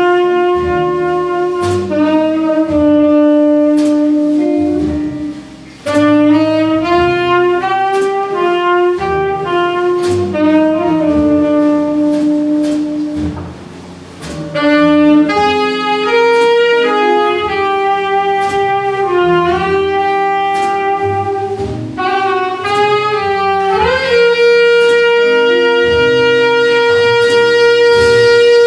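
Small jazz group playing a slow ballad live: a tenor saxophone carries the melody in long held notes over double bass, guitar and drum cymbals. The melody pauses briefly twice between phrases and ends the stretch on a long held note.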